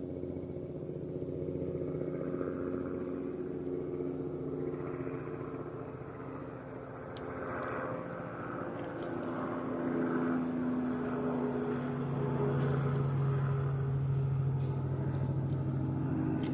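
An engine running steadily, its hum shifting slowly in pitch and growing louder in the second half, with a few faint, sharp ticks over it.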